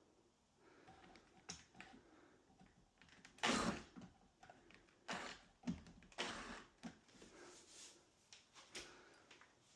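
Scattered short knocks and clicks of tools and wood being handled, the loudest about three and a half seconds in.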